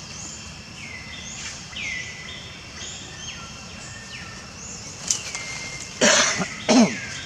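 Outdoor wildlife calls: many overlapping high calls, each sliding down in pitch and then holding, with two loud short cries near the end.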